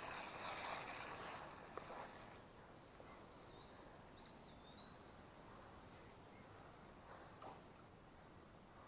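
Near silence: faint outdoor ambience by a creek, with soft rustling and a click in the first two seconds, then only a faint steady background.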